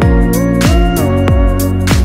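Instrumental background music with a steady beat, a drum hit about every half second under sustained chords and a sliding melody.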